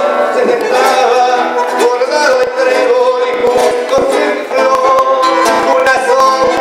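Live tango music: an acoustic guitar playing with long held melody notes over it.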